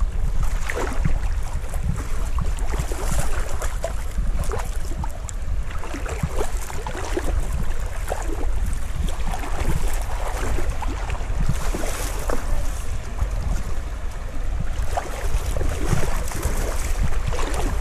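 River water splashing and trickling in many small, irregular splashes, over a steady low wind rumble on the microphone.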